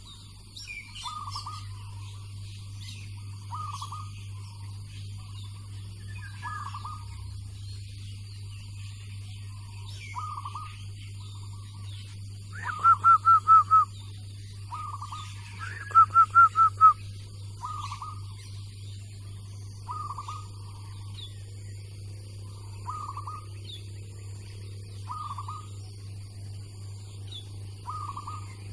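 Zebra doves (perkutut) cooing: a short low coo repeats every two to three seconds, and twice, about halfway through, a louder run of four or five rapid staccato notes. Faint higher chirps and a steady low hum sit underneath.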